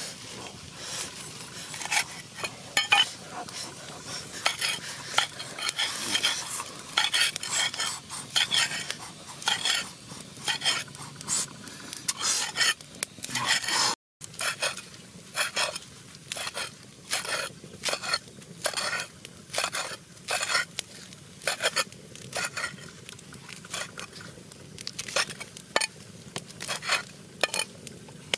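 Cleaver chopping fresh leafy herbs on a flat stone slab, each stroke a sharp knock of the metal blade on the stone, in a steady rhythm of about two strikes a second with a brief break about halfway.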